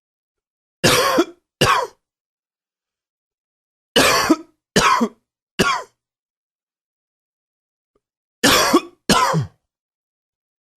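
A man coughing in three short bouts: two coughs, then three, then two, each cough a brief harsh burst.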